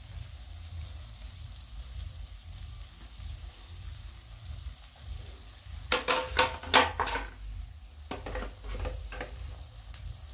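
Vegetables sizzling softly as they fry in a metal pan over a charcoal stove, with a run of sharp scrapes and knocks about six seconds in and a weaker run about eight seconds in, typical of a wooden spatula stirring against the pan.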